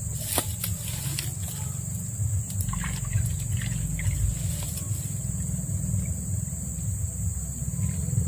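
Insects droning steadily at a high pitch, over an uneven low rumble, with a few scattered clicks and knocks in the first half.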